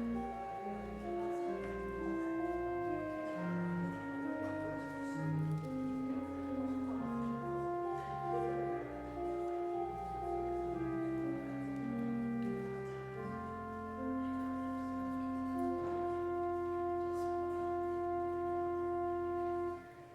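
Organ playing the last bars of a slow prelude: sustained chords moving over held bass notes, ending on a long held final chord that is released near the end.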